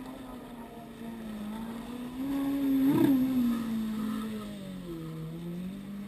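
Jet ski engines running at speed out on the water, a steady drone whose pitch rises and falls as the riders throttle and turn. Loudest and highest about three seconds in, dropping lower around five seconds before climbing again.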